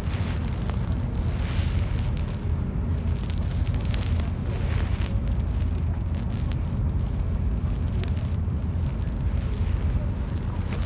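Steady low drone of a ferry's engines underway, with a rushing hiss of water and wind that swells and fades at times.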